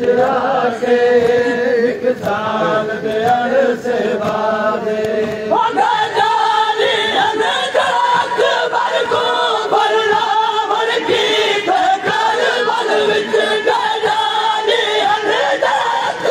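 Noha, a Shia mourning lament, chanted by men's voices together in a steady sung recitation. The melody jumps higher about five and a half seconds in.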